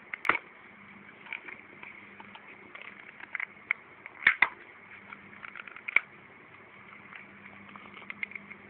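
Handling noise of a small plastic feeder cup being turned in the fingers close to the microphone: scattered soft clicks, with sharper knocks just after the start, a close pair about four seconds in, and one more at six seconds.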